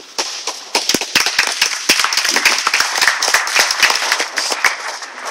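A small group applauding, with one pair of hands clapping close by; the clapping builds quickly just after the start and thins out near the end.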